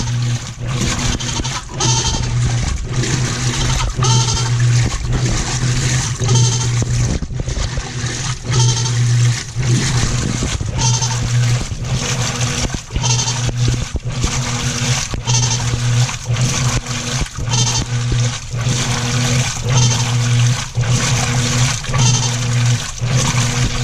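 Whirlpool commercial top-load washer agitating: the drive motor hums in regular strokes, about one every second and a half, with water sloshing in the tub.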